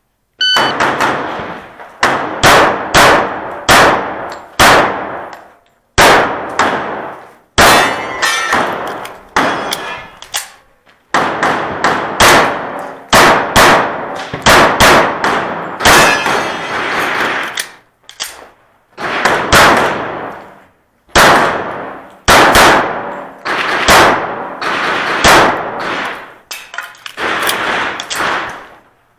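Sig Sauer Emperor Scorpion 1911 pistol firing .45 ACP in rapid strings, with short pauses between strings. Each shot echoes in a covered, roofed shooting bay.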